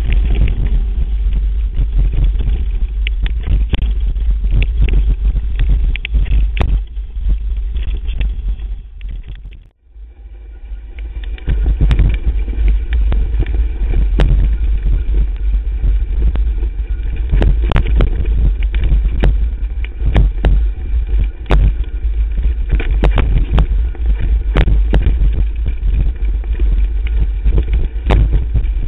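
Electric mountain bike ridden over a rough forest trail, heard through a camera mounted on the bike: a heavy low rumble of wind and vibration with frequent sharp knocks and rattles as the wheels hit roots and rocks. The sound briefly drops away about ten seconds in, then picks up again.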